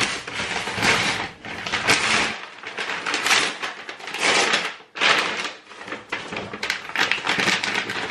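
A parcel being unpacked by hand: paper and cardboard packaging rustling and tearing in irregular bursts, with short gaps between them.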